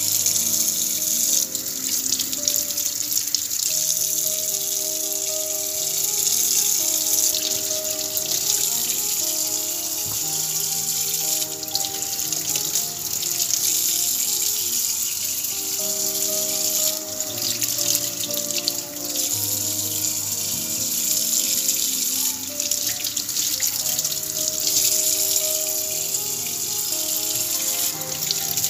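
Water running steadily from a kitchen tap into a stainless steel sink, with background music of slow held notes playing over it.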